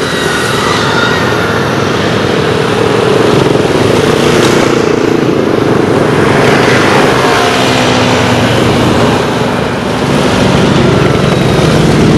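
A line of motorcycles, mostly large cruiser and touring bikes, riding past close by one after another. Their engines run loud and steady, with engine pitch rising and falling as each bike goes by.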